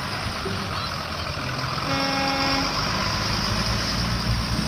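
School bus driving past, its engine running with a steady low rumble and road noise, and a horn sounding once for under a second about two seconds in.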